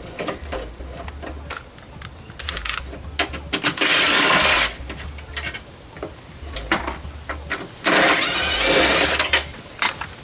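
A handheld power driver runs in two short spurts, about four seconds in and again about eight seconds in, backing out the bolts that hold a VW gearshift to the frame tunnel. Light metal clicks and knocks come between the spurts.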